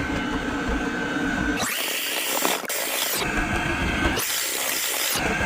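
Electric mixer running steadily as it beats cake batter in a bowl, its sound shifting abruptly every second or two.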